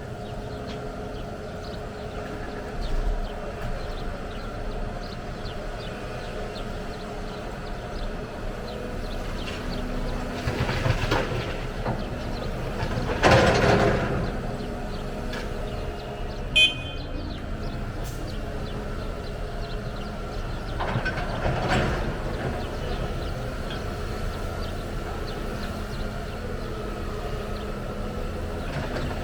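Heavy diesel machinery running steadily, with two swells of louder rushing noise, the bigger one a little before halfway and a second about three-quarters through, and a brief high beep in between.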